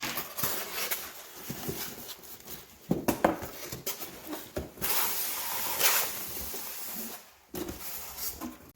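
Plastic packaging rustling and crinkling, with a few sharp clicks, as juicer parts are unwrapped and pulled out of the box.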